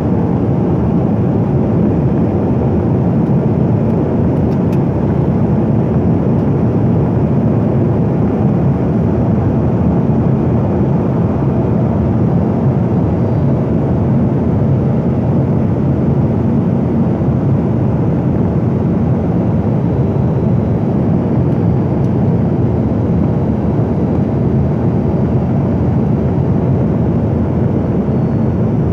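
Steady drone of an airliner cabin in flight: jet engine and airflow noise heard from a window seat, an even rumbling hiss that does not change.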